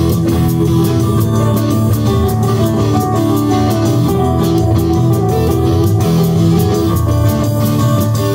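A live rock band playing, with two electric guitars over drums keeping a steady beat.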